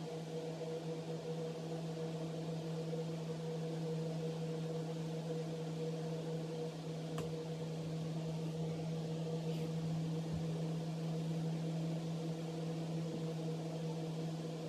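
A steady mechanical hum with a low, even drone and a higher tone above it, unchanging throughout, with a couple of faint ticks.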